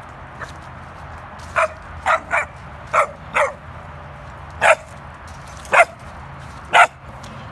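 German Shepherd–Saint Bernard mix puppies yipping: about eight short, high yaps at irregular intervals of roughly half a second to a second.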